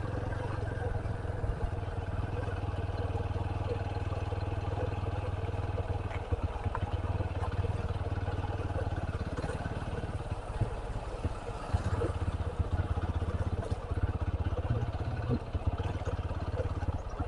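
Motorcycle engine running steadily as the bike rides along, with a constant low hum.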